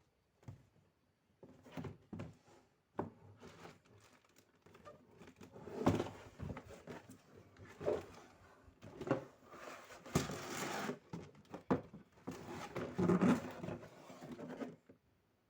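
Plastic Playmobil toy pieces being handled and knocked against a surface: irregular clicks and taps, with a longer scraping rustle about ten seconds in.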